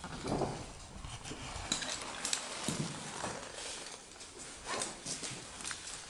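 Irregular knocks, clicks and scrapes, a few a second, over a faint hiss.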